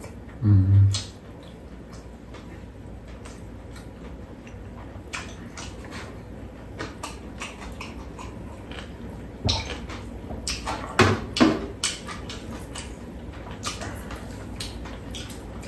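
Quiet eating and tableware sounds: scattered light clicks and taps of mugs and kimbap being handled on a metal tray, with a brief low hum near the start and a few louder knocks around ten to eleven seconds in.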